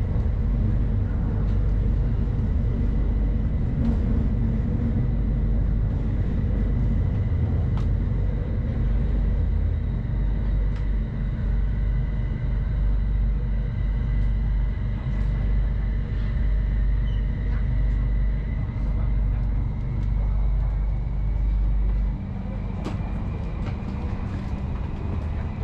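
Inside a Bangkok Airport Rail Link electric train running through a tunnel: a steady heavy rumble of wheels on rail, with a thin high whine that slowly rises in pitch. A little over 20 s in, the rumble drops off suddenly as the train comes out of the tunnel into the open.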